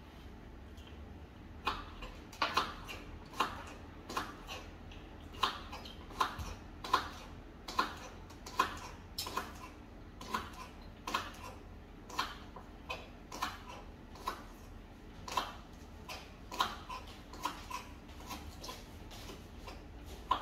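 A knife clicks against a plate in short, irregular strokes, about one or two a second, as a vegetable is cut on it.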